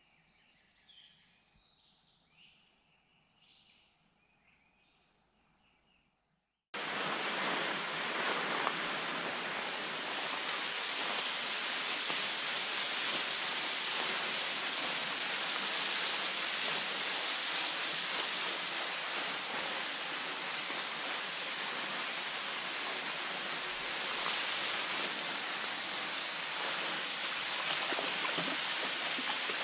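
Faint birdsong, a few short whistled notes and rising glides, gives way suddenly about seven seconds in to the loud, steady splashing of a thin waterfall dropping from a rock overhang into a shallow pool.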